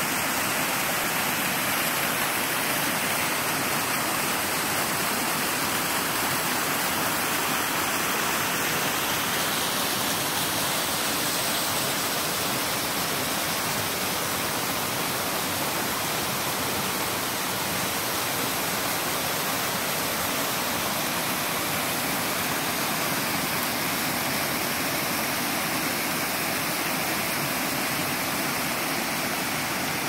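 A small waterfall and cascading creek pouring over rock ledges: a steady rushing hiss of falling water.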